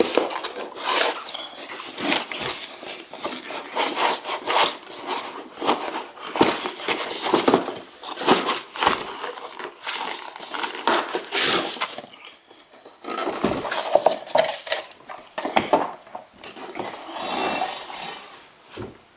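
Hands working in a long cardboard shipping box on a wooden table: cardboard scraping and rubbing with frequent knocks and clatters, a short lull about twelve seconds in. Near the end a metal sway bar is slid out of the box.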